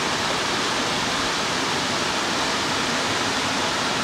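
Waterfall cascading down a rock face into a pool, a steady rushing of falling water.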